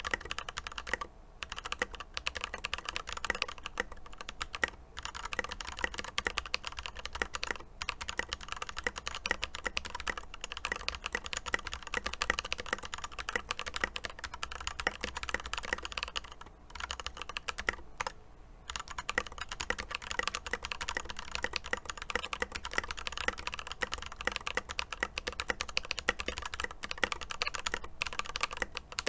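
Steady typing on an Epomaker EP84 hot-swap mechanical keyboard fitted with lubed Glorious Panda tactile switches and Tai-hao double-shot keycaps: a dense run of keystroke clacks with a few brief pauses.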